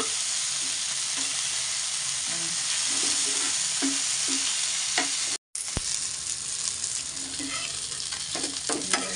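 Masala-coated fish sizzling as they shallow-fry in oil in a flat pan, with a metal spatula scraping and clicking against the pan as the fish are turned. The sound cuts out for a moment about halfway through.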